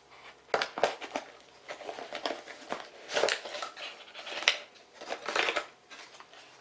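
Rustling, crinkling and scraping of small-product packaging being handled and unpacked by hand, in irregular bursts of varying length.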